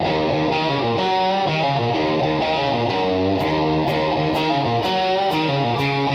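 Guitar-driven rock music with no vocals, starting abruptly out of silence; a regular high tick about twice a second joins in about three seconds in.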